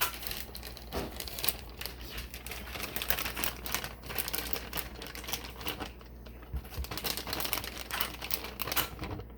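Plastic food packaging being handled and unwrapped: dense, irregular crinkling and sharp clicks, like a cheese ball's wrapper being peeled off.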